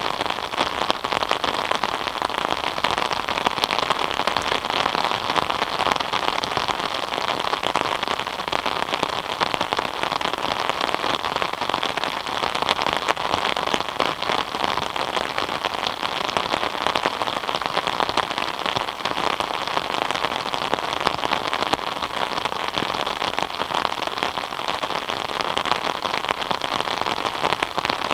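Steady rain falling, a dense even patter of many drops.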